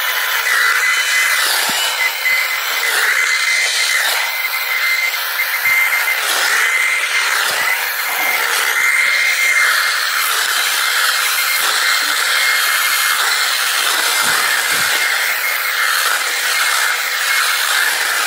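Sainlogic 6-inch cordless mini chainsaw running continuously with a steady high whine, its chain cutting through shrub branches.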